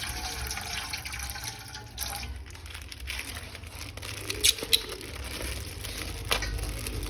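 Water running and splashing, as from a tap over a sink, with a few sharp clicks or knocks in the second half.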